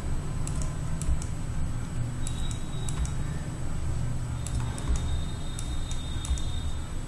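Irregular clicks of a computer keyboard and mouse, several a second at times, over a steady low hum.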